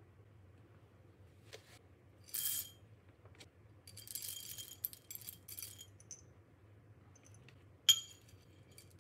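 Whole light-roast coffee beans poured from a copper measuring scoop into a glazed ceramic bowl: a short rattle about two seconds in, a longer run of rattling from about four to six seconds, then one sharp clink near the end.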